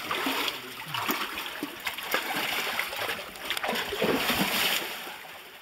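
Water splashing as feet wade through a shallow creek, irregular splashes over the steady run of the water.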